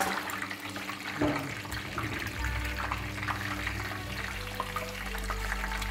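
Whole chicken deep-frying in a pot of hot oil: steady sizzling and crackling of the oil around the bird. A low steady hum comes in about two seconds in.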